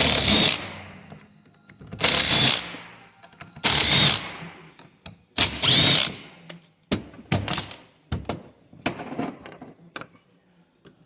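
Power screwdriver running in short bursts, backing out the screws on the cover of a plastic coolant flow control valve: four longer runs, then several shorter, sharper bursts.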